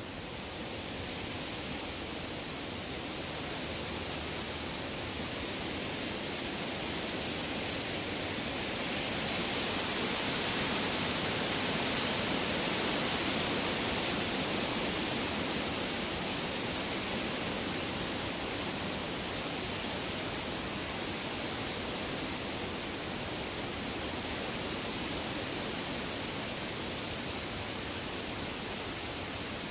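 Woodland ambience: an even rushing noise with no birdsong or distinct events, swelling to its loudest about ten to fifteen seconds in, then easing back a little.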